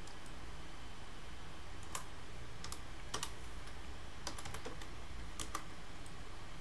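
Computer keyboard keys and mouse buttons clicking now and then: scattered sharp clicks, some in quick clusters of two or three, over a steady low hum.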